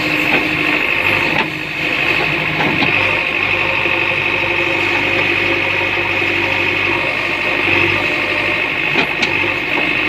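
JCB 3DX backhoe loader's diesel engine running steadily, with a steady high whine over it and a brief dip about a second and a half in.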